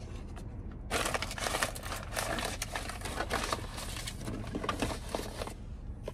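Hands rummaging through loose clutter, with crinkling plastic or paper and small knocks. The rustling starts about a second in and runs until near the end.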